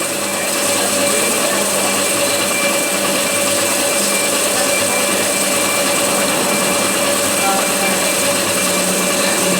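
Metal lathe running steadily, a constant machine noise with a few fixed hum tones and a high hiss.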